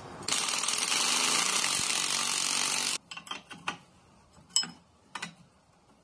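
Cordless power driver with a socket running steadily for nearly three seconds, then stopping abruptly, as it turns a spring compressor's screw on a strut coil spring. A few separate clicks from a hand wrench on the compressor follow.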